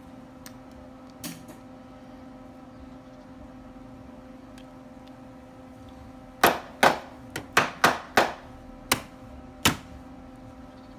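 A quick run of about eight sharp knocks, loud against a steady electrical hum, with one lighter knock earlier on.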